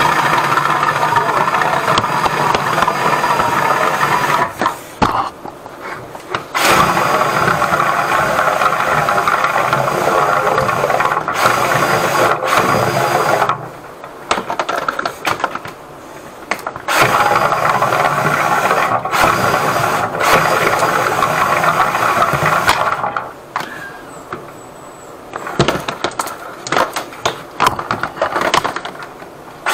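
Motorized drain-cleaning machine running in three long stretches with short stops between them, as its cable works into a blocked drain pipe.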